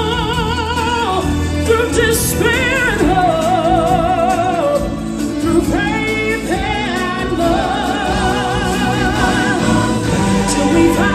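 Live stage-show music: singers hold long notes with strong vibrato over a steady backing track, with no spoken words.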